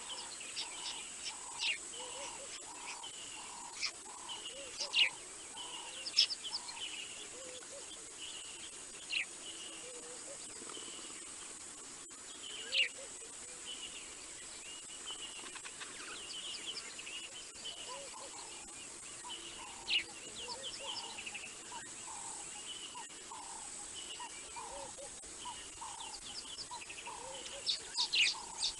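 Natural waterside ambience: wild birds calling with short sharp chirps, a lower note repeated two or three times a second that stops for a while mid-way and resumes, and a steady high insect trill underneath. Near the end there is a quick run of chirps.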